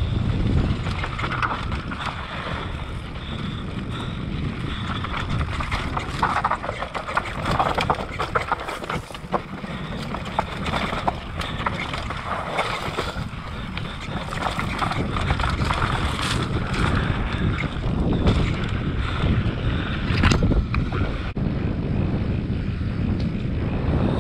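Downhill mountain bike running fast over a dry dirt trail: wind rushing over the camera microphone, tyres on loose dirt, and frequent short knocks and rattles from the bike over rough ground.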